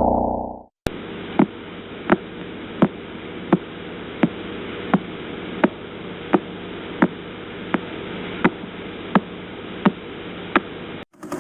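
Radio signal from a pulsar converted to sound: sharp, evenly spaced clicks, about one every 0.7 seconds, over a steady static hiss. Each click is one sweep of the spinning neutron star's radio beam.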